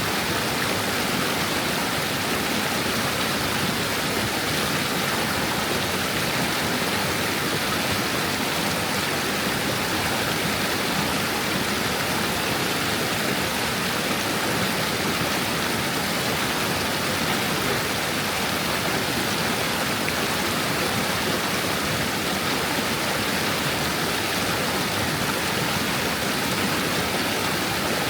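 Stream water flowing over stones, a steady rushing babble without let-up.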